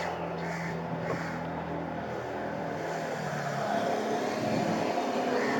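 A distant engine droning steadily, slowly growing louder as it approaches, with a higher whine coming in about halfway through.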